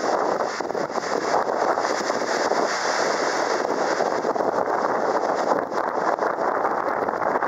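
Steady rushing wind noise on the microphone aboard a moving open sightseeing boat, with the boat and water noise underneath.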